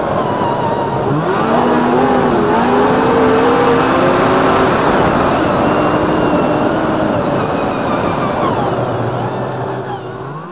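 Snowmobile engine running under way, its pitch rising as it speeds up about a second in, then holding and wavering before the sound fades out near the end.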